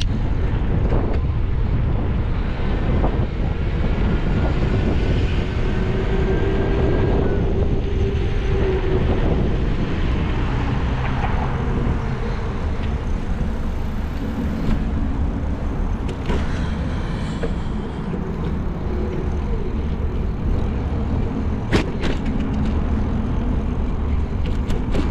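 Steady low rumble of a car driving along a city street, with the road noise of passing traffic and a faint whine in the first half. There is a single sharp click near the end.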